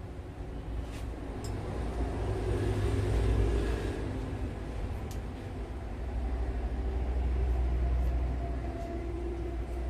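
Low rumble of passing motor traffic, swelling about three seconds in and again near eight seconds, with a few faint sharp clicks.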